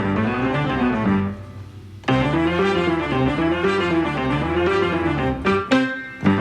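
Instrumental background music with a bouncy melody, dropping out briefly about a second in and again just before the end.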